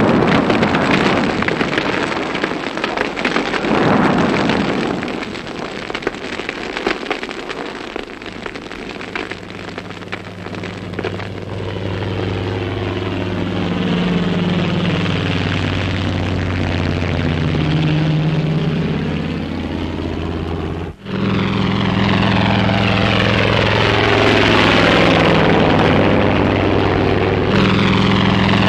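A broad rushing noise, then from about ten seconds in the steady drone of several helicopters flying over, with pitches sliding up and down as they pass. The drone drops out for an instant about two-thirds of the way through.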